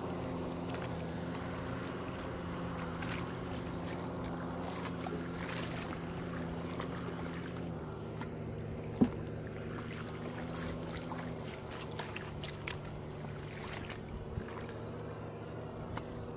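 An engine running steadily, its note shifting slightly lower about eight seconds in, with scattered small clicks and one sharp snap about nine seconds in.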